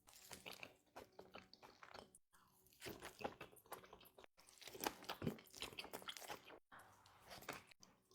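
Close-up eating sounds: crunchy bites and chewing, in short snippets broken by brief silent gaps.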